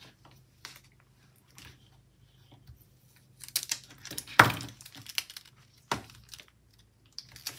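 Paper sticker being pried and peeled up off a planner page with the tip of a pair of scissors: light rustling and peeling. A sharp tap comes a little past the middle, and another about a second and a half later.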